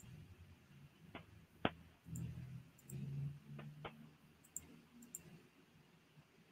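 Four sharp clicks, spaced irregularly, from a computer mouse being worked to set up screen sharing, with a faint low rumble between them.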